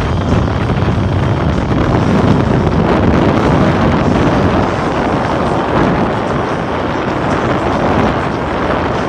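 Strong wind buffeting the microphone: a loud, steady rumble with no distinct tones.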